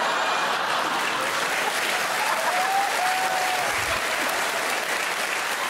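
Studio audience applauding steadily in response to a punchline.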